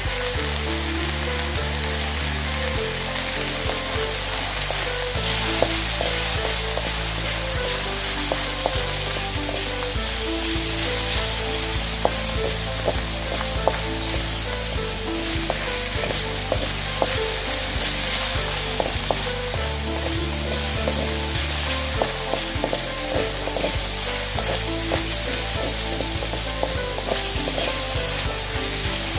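Chicken pieces with garlic and onion sizzling in a hot metal wok as they are stir-fried, the wooden spatula scraping and tapping against the pan in many short clicks.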